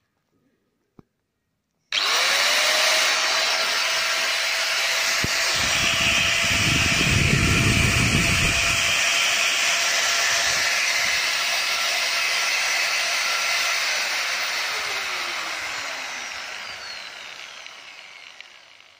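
Ingco angle grinder with no disc fitted, switched on about two seconds in and reaching full speed almost at once, running free with a steady whine, with a low rumble for a few seconds midway. After about twelve seconds it is switched off and winds down, its whine falling in pitch as it fades.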